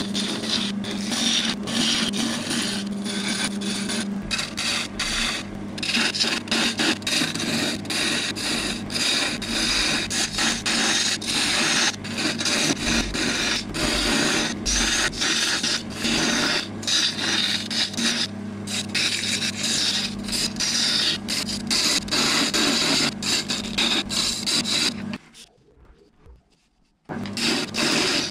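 Turning gouge cutting cherry wood spinning on a Record Power wood lathe: a continuous scraping cut, broken by many short gaps, over a steady hum. The sound drops to near silence for about two seconds near the end, then the cutting resumes.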